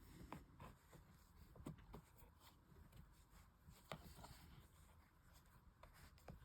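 Near silence, with faint scattered ticks and rubbing from hand-sewing: a needle and thread being drawn through a leather handle. The sharpest tick comes about four seconds in.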